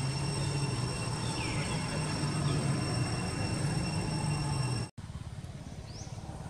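Outdoor ambience: a steady low hum with a steady high-pitched insect drone and a short chirp about one and a half seconds in. The sound cuts out abruptly about five seconds in and gives way to a quieter ambience with a rapid low flutter and one brief chirp.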